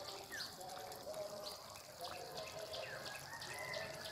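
Aar fish curry simmering in a karahi, with small, scattered bubbling plops.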